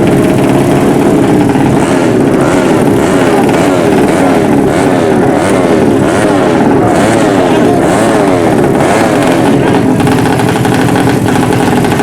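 Suzuki Satria FU drag bike engine, bored out to 200cc, revved over and over with quick throttle blips, its pitch rising and falling again and again. Loud and noisy throughout.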